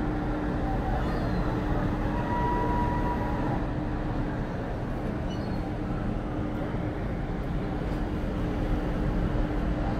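Steady low rumble of large ship machinery with a constant hum, as a cruise ship passes close by; a brief higher tone sounds about two seconds in.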